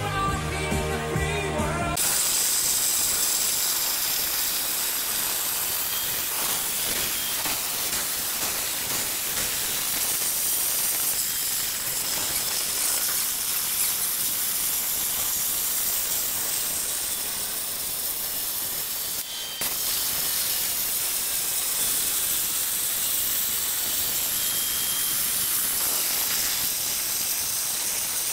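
CNC plasma cutter torch cutting half-inch steel plate: a steady hiss from the arc and air jet, breaking off for a moment about two-thirds of the way through. Opens with about two seconds of music.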